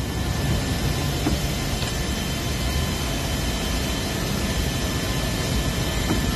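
Steady roar of a C-17 transport aircraft's running machinery, heard from inside its cargo bay with the rear ramp open, with a faint high whine over it.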